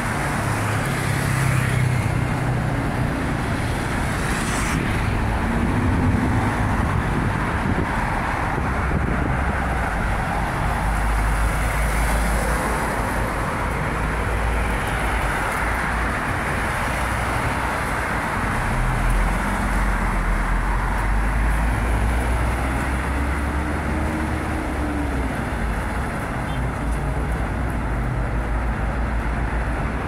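City road traffic: a steady wash of noise from cars and buses passing on a multi-lane street, with a deep rumble underneath and the engine tone of a passing vehicle rising and falling now and then.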